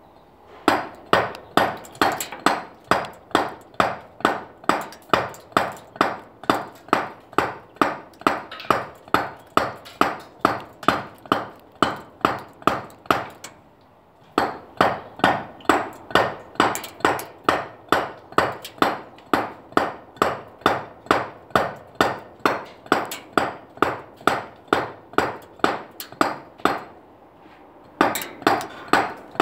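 A stonemason's dummy mallet drives a chisel into a limestone block in steady, even blows, a little over two a second. Each blow is a sharp, ringing knock. The blows pause briefly about halfway through and again near the end, then resume.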